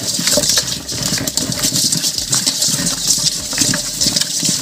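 Raw chicken pieces being tossed and rubbed by hand with turmeric in a metal bowl to wash them: continuous wet squelching with dense, irregular knocks of the pieces against the bowl.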